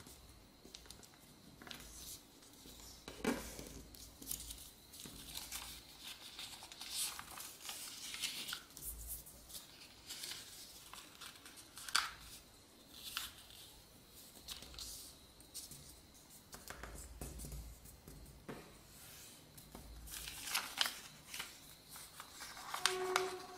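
A sheet of A4 paper being folded by hand, with irregular rustling and scraping as fingers slide along the folds to press the creases flat.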